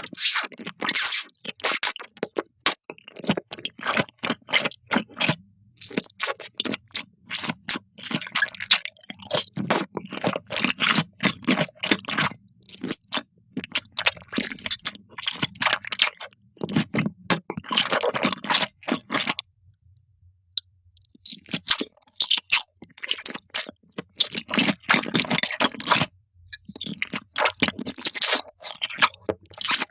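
A cat crunching and chewing crisp food close to the microphone: runs of rapid sharp crunches broken by short pauses, with a break of a second or two around two-thirds of the way through.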